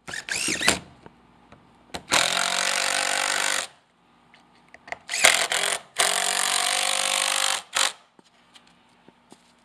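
Cordless drill-driver driving screws through a pine block into a timber strut. It gives a short spin-up at the start, then two steady runs of about a second and a half each, with short trigger blips between and after them.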